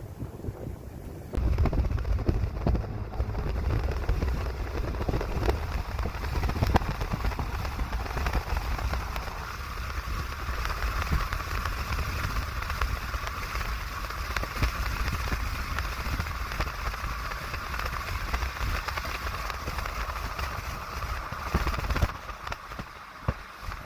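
Wind-driven rain and hail pelting down in a severe thunderstorm, with many sharp hits and strong gusts buffeting the microphone. It comes on suddenly about a second in and eases off near the end.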